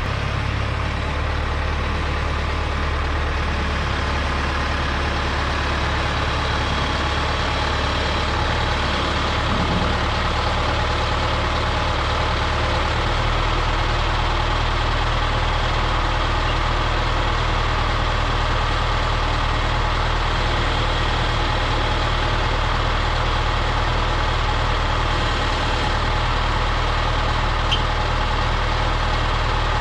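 An engine running steadily, its low note shifting about 13 seconds in.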